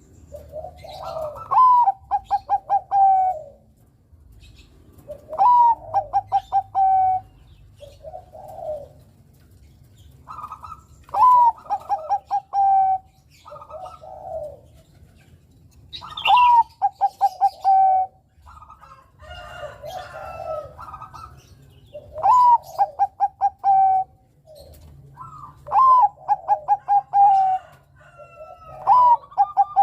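Zebra dove (Bangkok-strain perkutut) singing its cooing song. The phrase repeats about every four seconds: a rising-then-falling note, a quick run of short staccato notes, then a longer held note. Softer, lower coos come between the phrases.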